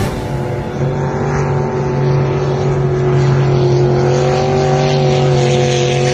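Race boat's engine running at high speed on the river, a steady drone whose pitch rises slightly about four seconds in.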